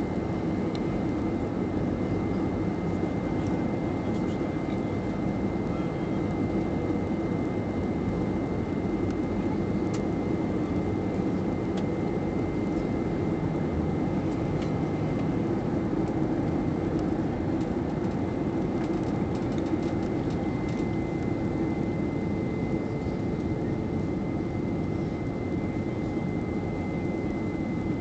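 Airbus A320 cabin noise on approach to landing, heard inside the cabin by the wing: a steady drone of the engines and airflow, with a thin, high steady whine over it.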